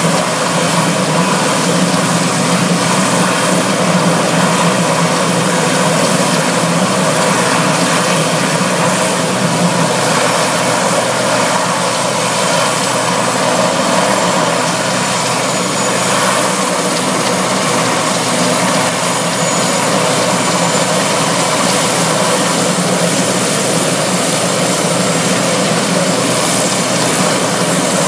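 RAF helicopter sitting on the ground with its engines and rotors running: a loud, steady noise with a thin constant high whine over it.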